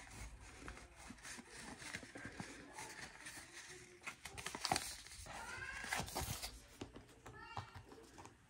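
Two high, wavering calls, a longer one about five seconds in and a short one near the end, over soft rustling and clicking of paper money being handled.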